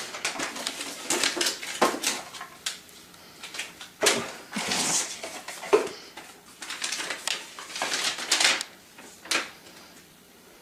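Paper rustling and crinkling in irregular bursts as a gift box is opened and a folded sheet of paper is pulled out and opened up, dying away near the end.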